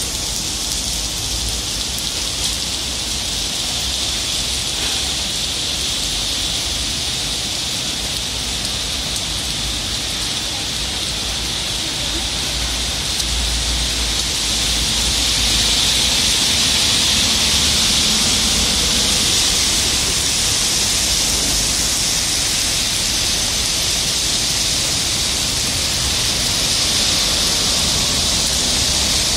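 Heavy rain pouring onto a city street and pavement, a dense, steady hiss that swells slightly around the middle, with a low rumble underneath.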